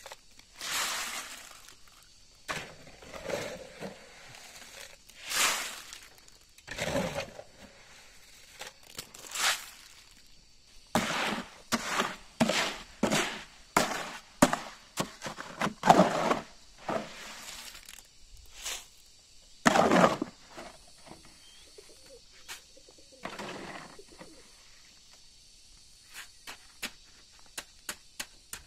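A steel shovel scraping and crunching through wet concrete and gravel in a metal wheelbarrow, in runs of quick irregular strokes, among other scattered scrapes and knocks of stone and concrete work around a wooden post.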